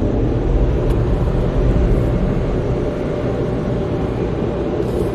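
Steady low rumble of a car's engine and road noise heard inside the cabin as it rolls forward and pulls away, easing slightly about halfway through.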